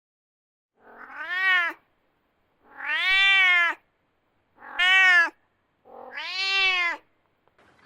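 A domestic cat meowing four times, each call about a second long and rising then falling in pitch.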